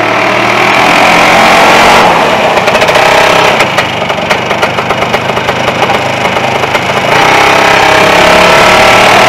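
1974 Snowbug Superbug single-ski snowmobile's single-cylinder Sachs two-stroke engine running under throttle as the machine drives. It is loud, drops to a quieter, rapid putter about two seconds in, then comes back up about seven seconds in.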